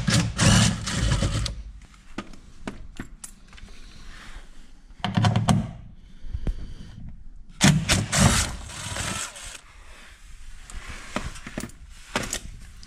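Cordless DeWalt impact driver undoing the 10 mm bolts of a plastic engine undertray, in several short bursts of rattling hammering.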